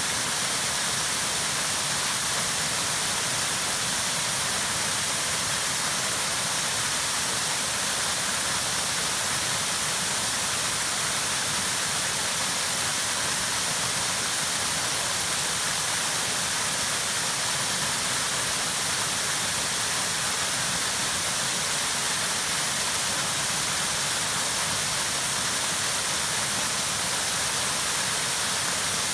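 Waterfall pouring steadily over rock ledges into a shallow pool: a constant, even rush of water, heaviest in its hissing upper range.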